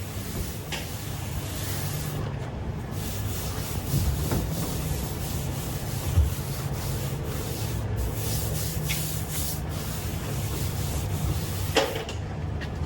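Power sander grinding across a car body panel with a steady motor hum, abrading sun-baked old paint, primer and oxidation down to bare metal. A few sharp knocks come through, the loudest about halfway.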